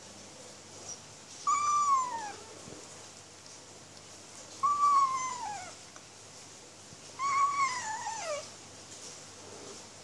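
Kitten meowing three times while eating dry kibble, each a short cry that starts high and slides down in pitch; the owner takes the calls for angry shouting at its food.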